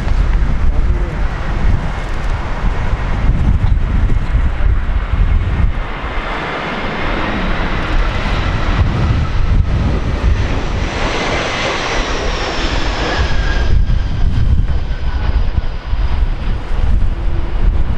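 Jet airliner on final approach passing low overhead: its engine rush and whine build over several seconds, cut down sharply about fourteen seconds in, and trail off in a faint falling whine. Strong gusty wind buffets the microphone throughout.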